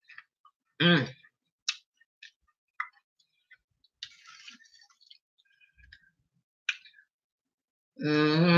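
Someone chewing potato chips close to the microphone: sparse crunches and wet mouth clicks. A short vocal sound comes about a second in, and a longer one near the end.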